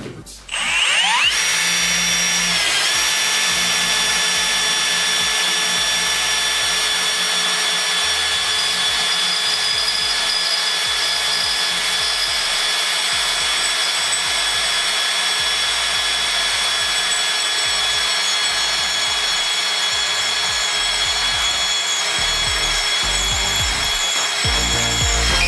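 Cordless drill with an HSS-Co twist drill bit boring into a metal flat bar, the motor whining steadily under load. The pitch dips briefly as the bit bites, about two seconds in.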